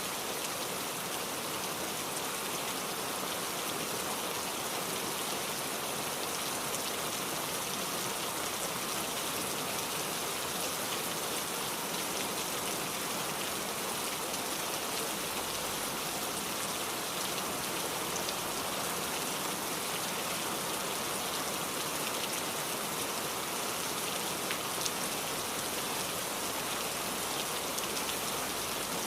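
Steady rain falling, a continuous even hiss of many drops with fine scattered patter.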